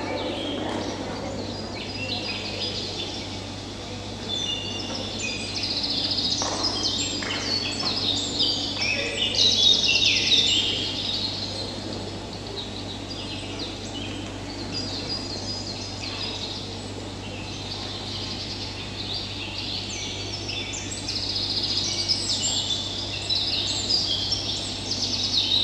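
Recorded birdsong, a dense chorus of quick chirps and trills, swelling about ten seconds in and again near the end, over a steady low hum.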